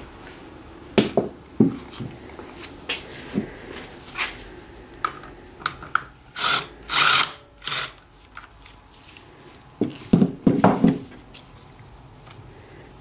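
Metal engine parts and hand tools clinking and knocking while a Subaru EJ25D engine on a stand is taken apart at its timing covers. A little past the middle come three short bursts of a small power driver, and near the end a quick cluster of knocks as parts are handled.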